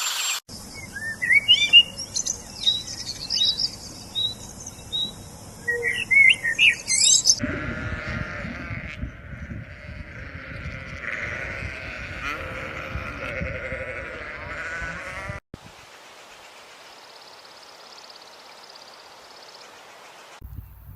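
A series of separate animal sound clips cut together. Birds chirp in short rising and falling calls for the first several seconds. After a cut, other animal calls follow over a low rumble, then a quieter steady stretch.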